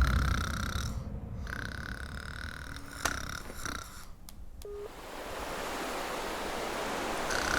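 A man snoring. A loud, low, rasping snore dies away over the first second, and over the last few seconds a long noisy breath builds up, growing louder.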